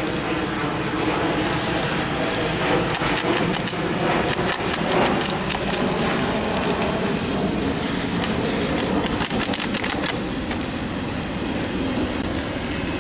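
Model warships' BB cannons firing in a close-range exchange: dense rapid clicking and ticking of shots and BBs striking the hulls, over a steady hiss, with sharper hissing bursts about two, six and eight to nine seconds in.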